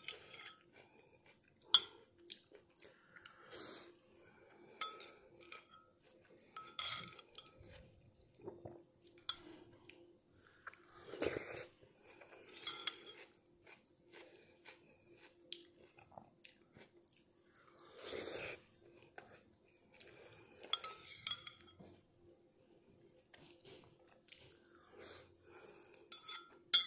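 A metal spoon clinking now and then against a ceramic soup bowl, with chewing of noodle soup and crunchy raw onion in between.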